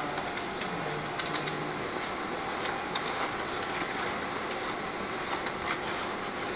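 A brush spreading carpenter's glue over a paper canopy: soft scratchy strokes and paper rustling, with scattered light clicks.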